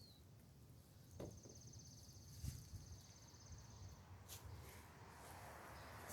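Near silence, with a faint high insect trill starting about a second in and lasting about three seconds, and a few soft clicks.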